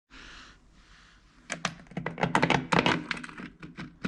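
Quick, irregular clicking and clattering of small hard parts being handled: work on the Vespa's rear brake-light lens and its fittings. A short soft hiss comes first, and the clicking starts about a second and a half in.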